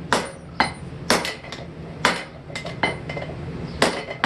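Hand hammer striking hot steel on an anvil at roughly two blows a second, each a sharp metallic strike with a brief ring, as an edge is forged into an old hammer head.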